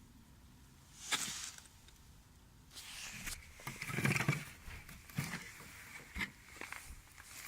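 Handling noise from unpacking: a few sharp clicks and knocks of hard plastic, with a burst of rustling in the middle as items are moved about.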